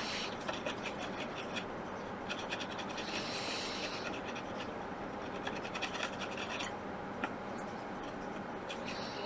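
Fast, fine scratching on a laptop circuit board, in three runs of rapid ticks, as the area around a burnt pad is scraped.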